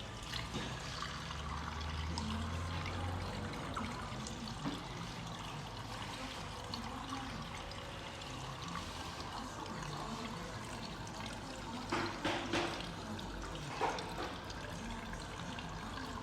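Water running or splashing steadily, with a few short sharp knocks about twelve and fourteen seconds in.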